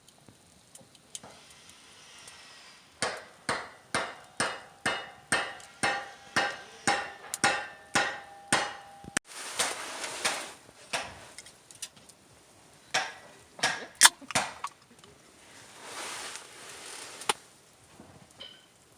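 Steady hammering, about two strikes a second for several seconds, each strike with a short metallic ring; a few more strikes follow later, with some rustling in between.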